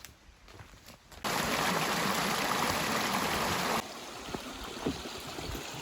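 A steady rushing noise like running stream water, starting abruptly a little over a second in and dropping sharply to a softer rush with a few light knocks just before four seconds.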